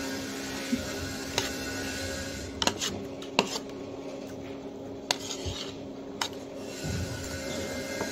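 A spoon clinking and scraping against a plate, a few separate light clinks spread over several seconds, over a faint steady hum.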